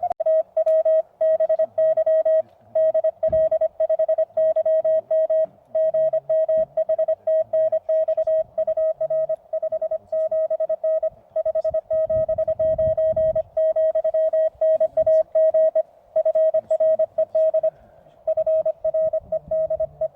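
Morse code (CW) from a Weber MTR QRP transceiver: a single steady tone keyed on and off in quick dots and dashes.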